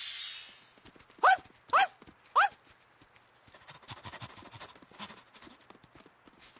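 Three short, loud chirps, each sliding upward in pitch, about half a second apart, then soft, irregular rustling and footstep-like ticking.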